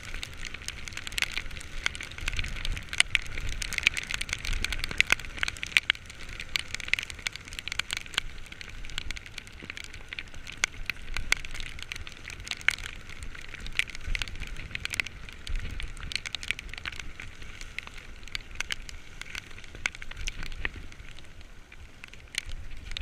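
Heavy rain pattering, with a dense, irregular crackle of drops striking close by, over a low rumble.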